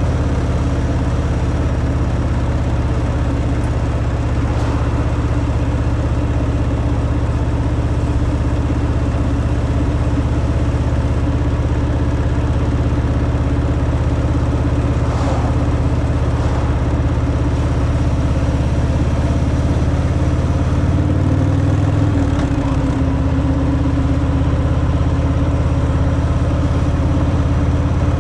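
Harley-Davidson Fat Boy's V-twin engine through its stock exhaust, running steadily with a brief drop and recovery in pitch about 22 seconds in.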